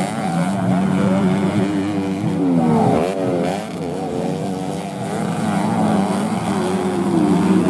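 Several standard underbone (bebek) motorcycles racing on a dirt track, engines revving up and down, with a cluster of rising and falling revs about three seconds in.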